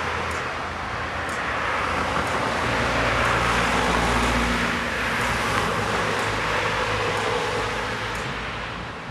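Road traffic passing a pedestrian crossing: tyre and engine noise of cars and a white van, loudest about four seconds in as the van drives by. Over it, the crossing signal's faint tick about once a second.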